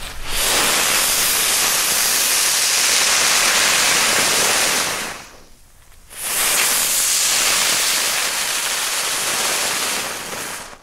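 A bundle of small firework ground spinners hissing as they spray sparks, stuck flat in mud instead of spinning. Two stretches of steady hissing, about five seconds each, with a brief break about halfway.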